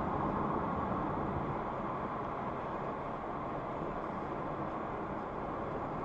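Steady road noise of a moving car heard from inside its cabin, a rush of tyres and engine, getting a little quieter over the first few seconds.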